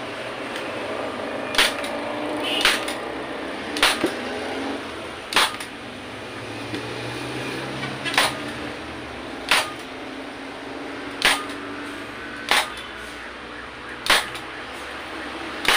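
Hand staple gun firing staples one at a time through a motorcycle seat cover into the plastic seat base: about ten sharp snaps, one every second or so.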